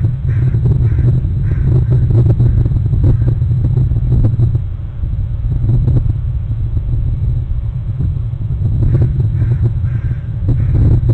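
Crows cawing, a few caws in a row near the start and again near the end, over a steady low rumble.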